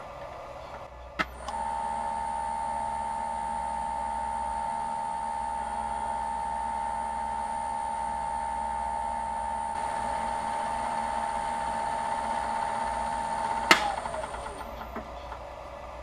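Wood lathe switched on with a click about a second in, running with a steady whine while friction polish is rubbed onto the spinning pen blank with a paper towel, then switched off with a click near the end and winding down.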